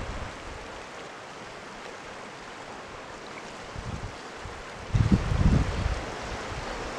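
The Kern River rushing steadily past granite boulders, with wind rumbling on the microphone in gusts, the strongest about five seconds in.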